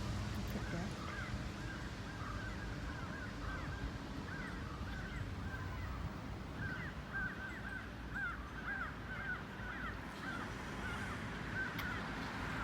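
Birds calling outdoors: a steady run of short, repeated calls, several a second, over a low background rumble.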